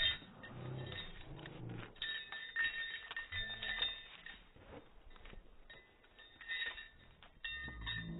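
Dogs playing on leashes: metal collar tags and leash clips jingling as they move, with a few short, low vocal sounds from the dogs.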